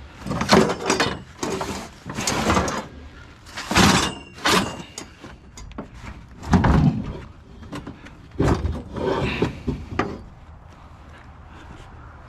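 Scrap items being handled and loaded into a vehicle: a string of knocks, scrapes and clatters, about nine over ten seconds, then quieter near the end.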